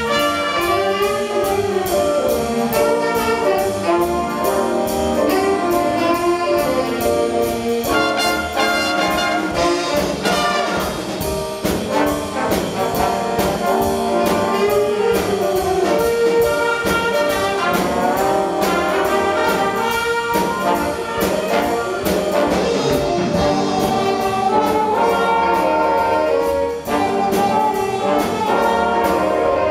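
Student jazz big band playing: a saxophone section and trumpets carry the tune over a drum kit keeping a steady beat.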